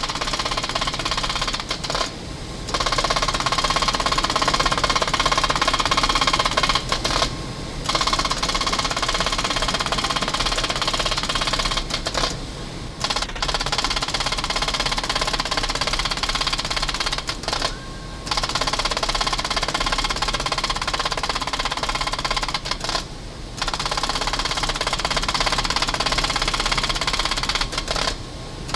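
Vintage IBM punched-card sorting machine running: a rapid, continuous mechanical clatter over a steady whine, which briefly drops away about every five seconds before carrying on.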